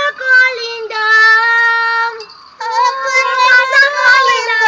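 High-pitched voices singing, like children's voices. They hold one long note about a second in, then after a short break another long, wavering note.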